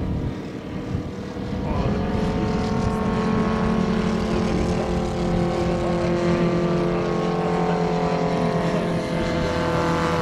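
Moki S215 radial engine of a large-scale RC Bücker Bü 133 Jungmeister model biplane running in flight. About two seconds in it opens up, rising in pitch and getting louder, then runs steadily at high power.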